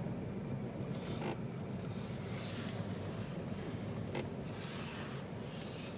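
Steady low rumble of a car's engine and tyres heard from inside the cabin while driving slowly over fresh snow, with a few soft crunches of snow under the wheels.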